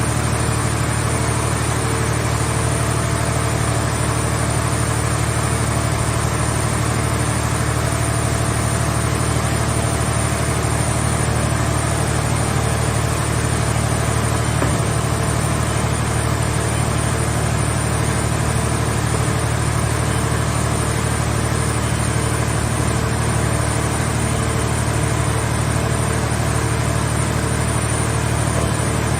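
Power unit of a scrap car-shell baler running steadily at a constant speed: an even low engine hum with a thin high whine over it.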